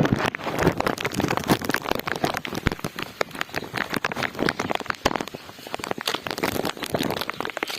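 Rain falling, with a dense, irregular patter of drops striking close by.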